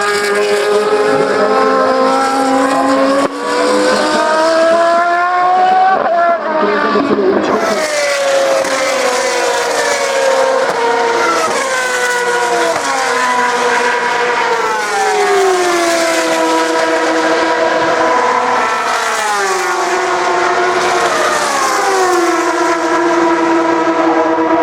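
Several high-revving single-seater racing car engines on track, their pitch repeatedly climbing through the gears and sweeping down as they brake and shift down.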